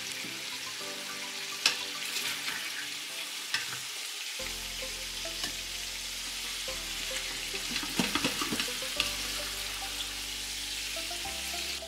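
Chicken thighs sizzling in oil in an Instant Pot's stainless steel inner pot on the sauté setting, a steady hiss, with a few sharp clicks and scrapes of metal tongs and a wooden spatula against the pot as the pieces are lifted out.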